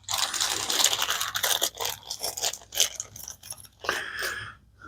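Crinkling and rustling handling noise with many quick clicks, as parts of a knife sharpness tester and its packaging are handled during setup. It eases off near the end, with a short final rustle.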